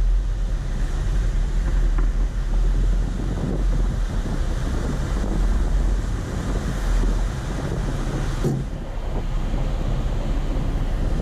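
Wind buffeting a hood-mounted microphone with a heavy, uneven rumble, over the wash of surf breaking on the beach. A single sharp knock comes about eight and a half seconds in.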